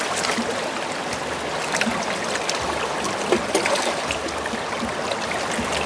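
Shallow river running over rocks: a steady rush of water, with scattered sharp clicks.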